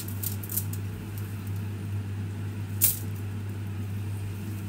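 Metal tongs clicking and scraping as cooked noodles are lifted from a non-stick pan into an aluminium foil tray, with one sharp clack a little before three seconds in. A steady low hum runs underneath.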